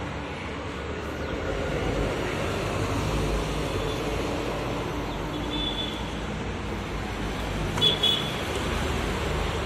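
Steady rumble of road traffic going past. A short, sharp high-pitched sound a little over eight seconds in is the loudest moment.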